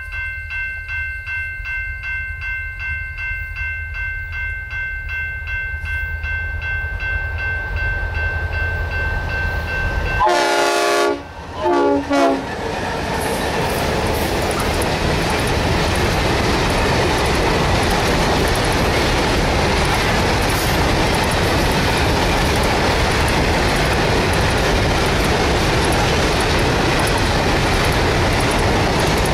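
Diesel freight train led by a G-class and an XR-class locomotive: a low engine rumble grows louder, then two horn blasts sound about ten seconds in as the locomotives pass. A long string of grain hopper wagons follows with a steady rolling noise of wheels on rail.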